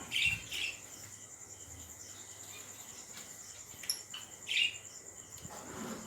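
Small cage birds in an aviary giving a few short chirps, two near the start and two more about four seconds in, over a steady high-pitched whine.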